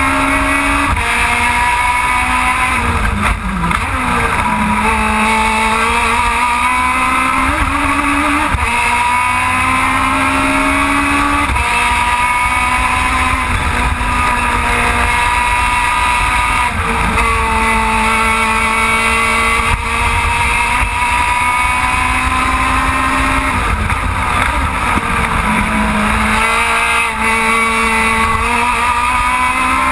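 Aussie Racing Car's Yamaha 1300 cc four-cylinder engine at racing revs, heard from inside the car. The pitch climbs steadily along the straights and drops at each gear change. It falls away a few times as the car slows for corners.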